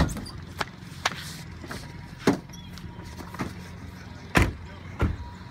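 A car's trunk lid slammed shut, followed by a series of thumps and clicks from the car's doors and body as people climb in, over a low steady hum.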